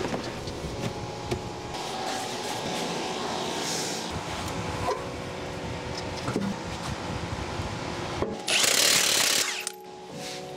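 A wheel being fitted onto a BMW X5's hub by hand, with scattered knocks and scrapes of the alloy wheel and lug bolts. Near the end a cordless impact wrench runs once for about a second, driving a lug bolt. A steady hum from the garage air conditioner runs underneath.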